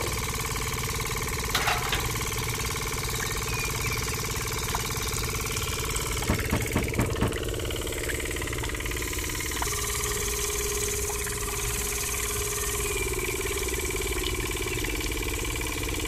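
Small motor of a miniature belt-driven model machine running steadily, with a few light knocks about six seconds in.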